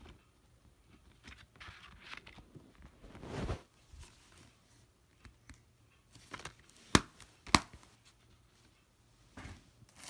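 A plastic DVD case being handled: a short rustle, then two sharp plastic clicks about half a second apart.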